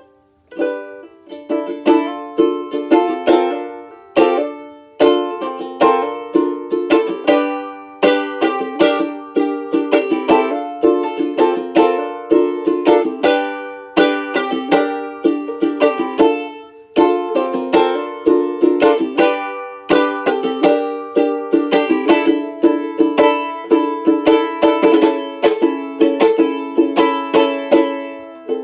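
Tenor banjolele (banjo-ukulele) in re-entrant gCea tuning, strummed in a steady rhythm of chords. It breaks off briefly between phrases, about every few seconds.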